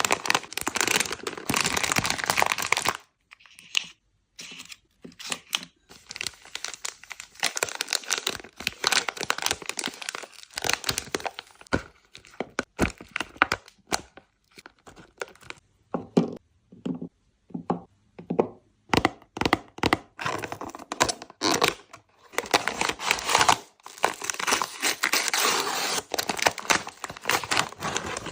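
Plastic and foil candy wrappers crinkling and tearing as sweets are unwrapped, in long crackly stretches broken by short sharp cracks.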